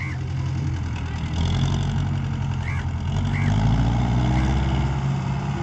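Belarus tractor's diesel engine running hard, straining against a heavily loaded trolley, its pitch rising from about three seconds in as it is revved up.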